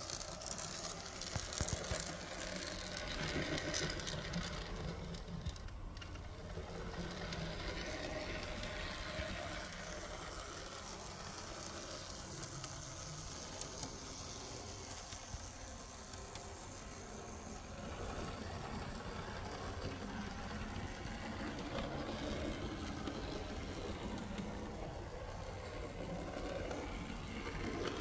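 Märklin Z-scale V36 diesel model locomotive running on track: its tiny electric motor and gears make a steady mechanical whir with fine ticking.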